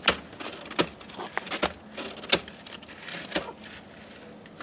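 Rustling and crinkling with a string of sharp clicks and knocks, handling noise at a chicken coop, dying down to quieter rustling near the end.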